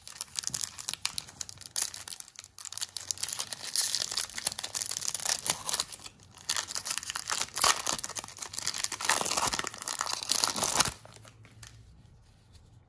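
Foil wrapper of a 2020 Topps Series 1 baseball card pack being torn open and crinkled by hand: a dense, crackling rustle with louder tearing spells, stopping about eleven seconds in.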